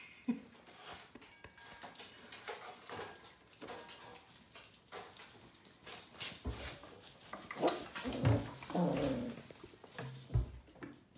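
Puppies scuffling in play, with short whines and growls in the second half.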